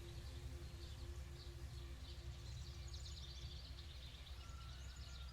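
Faint woodland ambience: small birds chirping and twittering over a low, steady rumble.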